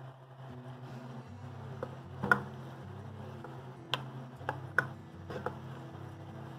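Wooden spoon stirring diced vegetables in an enameled cast-iron Dutch oven, knocking sharply against the pot about five times in the second half, over a soft sizzle of the vegetables sautéing in grease.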